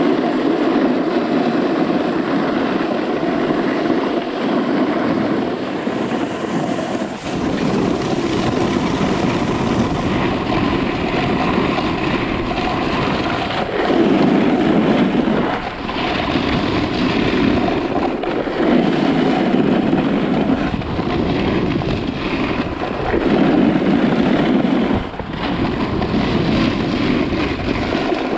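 Ski or snowboard edges scraping and carving across hard-packed groomed snow through a series of turns, the scrape swelling and easing every couple of seconds, with wind rushing over the microphone.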